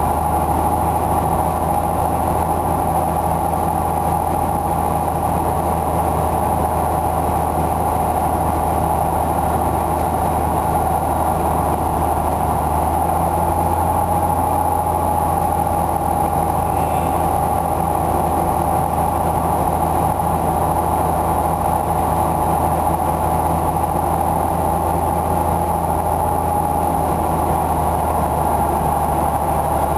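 Cessna 172H's six-cylinder Continental O-300 engine and propeller droning steadily, heard from inside the cabin on approach to a landing, with a slight deepening of the low hum partway through.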